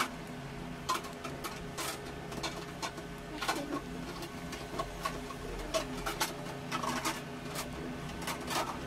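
A utensil stirring a wet mixture of glue and liquid detergent in a container for slime, clicking and scraping irregularly against the container several times a second.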